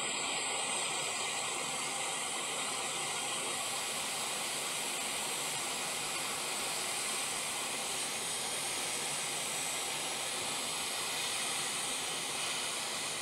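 Hot air rework station blowing a steady hiss while it reflows the solder under a surface-mount coil.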